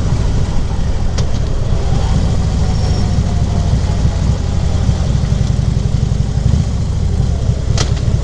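2014 Harley-Davidson Ultra Classic Limited's V-twin engine running steadily, heard from the rider's seat, its sound sitting mostly low in pitch. Two brief sharp clicks, about a second in and near the end.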